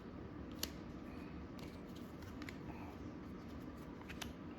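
Trading cards being handled and flipped through by hand, with a few faint, sharp clicks as cards snap against one another over a low room hum.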